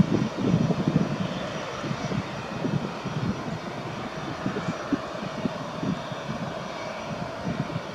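CFM56-5B turbofan engines of an Airbus A320-214 running at taxi power as the airliner taxis: a steady jet rumble with a faint whine over it.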